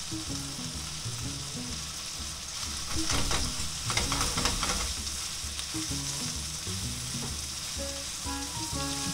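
Pork belly and freshly added cucumber slices sizzling in a nonstick frying pan as they are stir-fried with chopsticks. The stirring gets louder and sharper for a couple of seconds about three seconds in.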